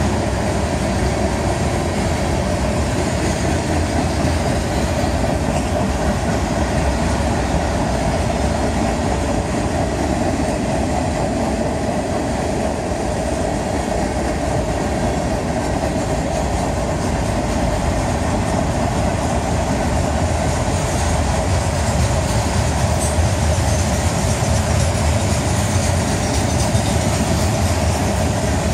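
Freight cars of a long mixed manifest train rolling past: the steady noise of steel wheels running on the rails.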